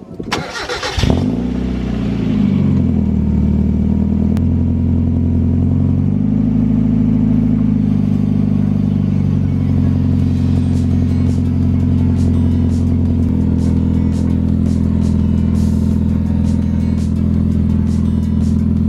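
Mazda Miata 1.6 four-cylinder engine starting, its revs dropping from the start-up flare to a steady idle with small shifts in pitch. The sound stops suddenly near the end.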